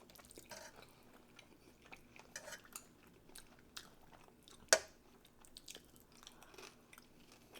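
Quiet chewing and soft mouth sounds of people eating, with light clicks of utensils against dishes. One sharp click a little past halfway is the loudest sound.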